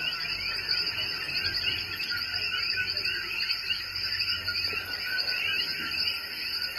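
Dense night chorus of coquí frogs and insects: many short chirps at several pitches overlapping into a steady wall of calls.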